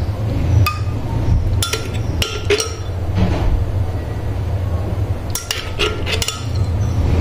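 Metal spoon clinking against glass tumblers of cold coffee, about five sharp ringing clinks, some in quick pairs, over a steady low hum.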